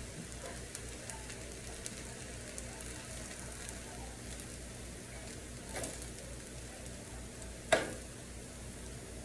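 Fried rice still sizzling faintly in a hot skillet as it is spooned into a serving bowl, with the serving spoon clinking against the pan twice, the second time louder, about three-quarters of the way in.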